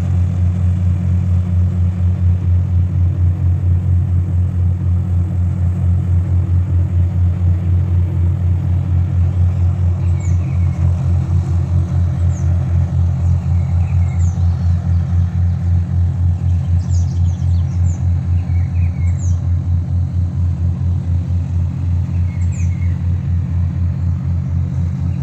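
Diesel engine of a river towboat pushing barges, running under way with a deep, steady drone and a regular throb.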